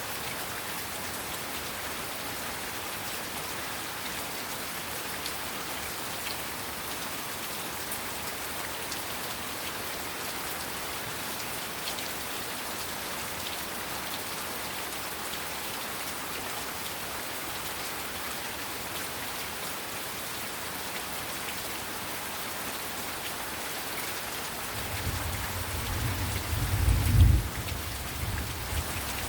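Heavy rain falling steadily, with scattered ticks of individual drops. Near the end a low rumble of thunder builds, peaks and fades.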